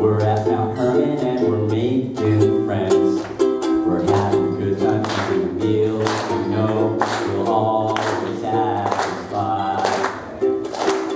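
Ukulele strummed in steady chords while a man sings along into a microphone.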